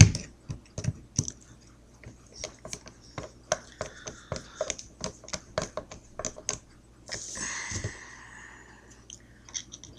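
Small paintball gun parts being handled and fitted together: irregular light clicks and taps, with a short scraping, sliding sound about seven seconds in.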